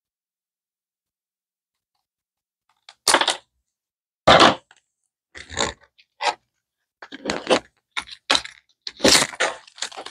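Stiff plastic clamshell packaging being handled and opened: a run of short, irregular crackles and snaps starting about three seconds in.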